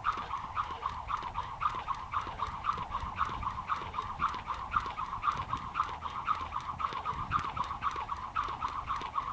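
Jump rope whirring rapidly through the air during double unders, a fast, even, pulsing whir at about four to five passes a second, with light ticks of the rope against the ground.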